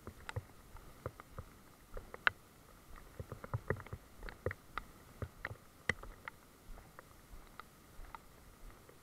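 Rain dripping in a wet forest: scattered light taps and clicks, several a second at uneven spacing, over a faint steady hiss.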